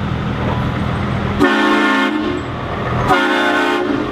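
Scania truck's air horn sounding two short blasts of several tones together, a little under a second apart, over the steady running of its diesel engine.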